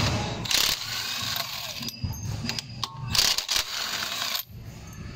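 Cordless impact wrench backing out a scooter's body-panel bolts, running in short bursts.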